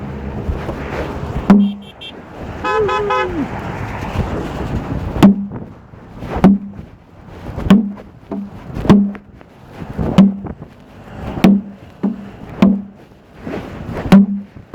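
A horn honks once, a single pitched blast of about a second that bends down in pitch at its end. It is followed by a steady series of dull thuds about every second and a bit.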